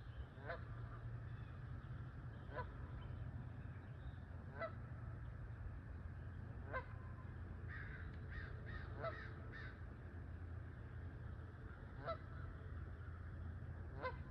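Geese honking on a pond: single honks about every two seconds, with a quick run of five calls a little past halfway, over a steady low rumble.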